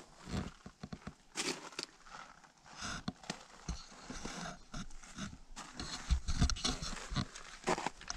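Footsteps crunching on snow and frozen dirt, with rustling and scraping, in an uneven rhythm that grows louder over the last couple of seconds.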